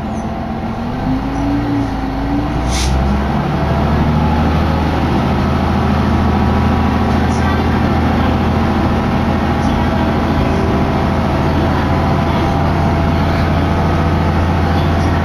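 Diesel railcar engine revving up as the car pulls away, heard from inside the car, with a short rising whine early on and a single sharp clack about three seconds in. The engine then settles into a steady low drone as the car gathers speed.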